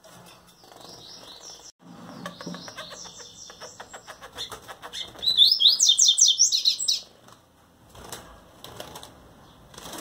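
Coleiro (double-collared seedeater) singing in the breeding cage: a series of high, quick notes that turns into its loudest fast run from about five to seven seconds in. A rapid run of clicks comes before the loud part.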